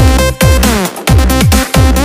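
Electronic dance music with a heavy bass pulsing about twice a second and synth notes sliding up and down in pitch.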